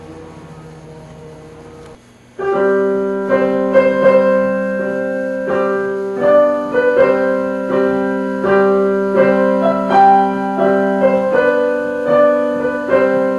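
Piano music of slow, held chords, starting loudly about two seconds in.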